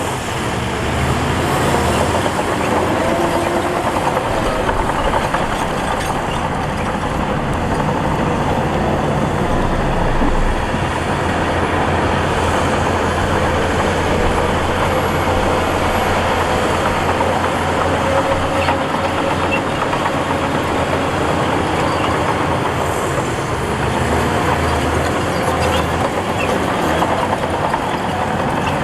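Diesel engine of heavy earthmoving machinery running steadily under work, its low drone swelling and easing several times.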